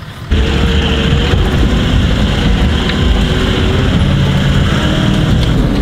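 Engine and road noise heard from inside the cab of a Toyota LandCruiser 4WD on the move: a steady, loud drone that cuts in suddenly just after the start.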